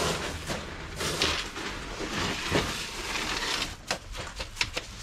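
Pea gravel crunching and scraping as it is shifted and packed under plastic drain pipes, with a few sharp clicks of stone about four seconds in.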